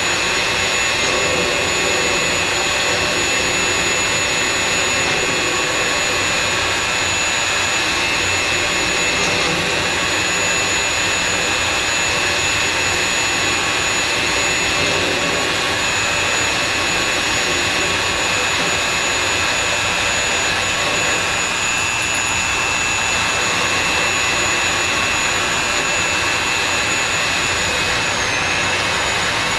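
Electric drill on a magnetic-base mini drill rig running steadily, its bit cutting into the steel of a safe door, with a steady high whine. The bit is through the soft outer steel and into the harder material.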